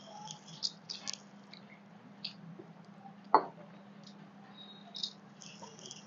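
Fingers wiping and scraping the last food from brass eating plates, giving short wet squishing and scraping sounds, with a sharp click a little over three seconds in. A faint steady hum runs underneath.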